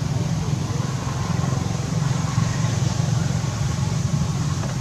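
A steady low rumble that holds at the same level throughout, with no distinct calls or knocks standing out.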